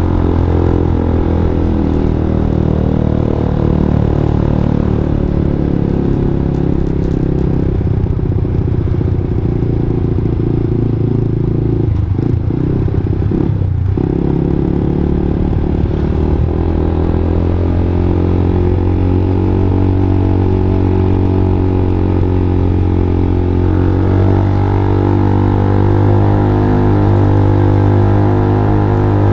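Single-cylinder four-stroke motorcycle with a Yoshimura R11 racing exhaust, running under way. Two recordings of the same exhaust are laid over each other so the single sounds like a twin-cylinder. The engine note wavers briefly about twelve seconds in, then grows louder in the last few seconds.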